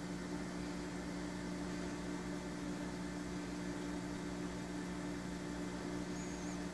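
Steady hum of a 29-gallon Biocube reef aquarium's running equipment, its circulation pump and hood fans: a few held low tones over an even hiss.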